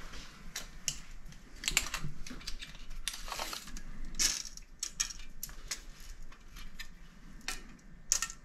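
Stanley PowerLock tape measure having its steel blade pulled out and handled against a long metal hand plane: a run of irregular light clicks and metallic rattles.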